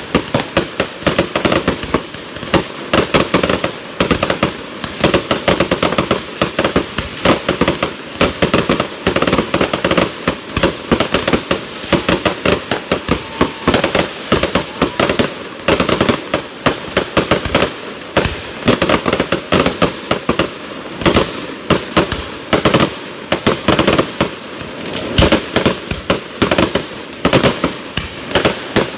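Aerial fireworks going off in a dense, unbroken barrage of bangs and crackles, several shells launching and bursting at once, many reports a second.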